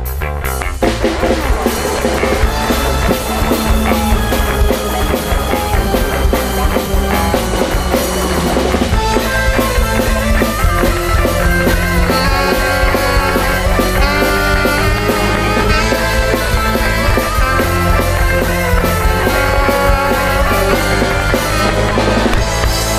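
Rock music with a drum kit and electric guitar playing, the bass getting heavier about nine seconds in.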